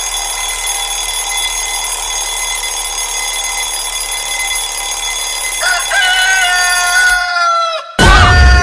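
Rooster-crow alarm tone: a steady hiss, then about two-thirds of the way in a rooster crows one long call that sinks slowly in pitch and stops short. A louder crow starts near the end.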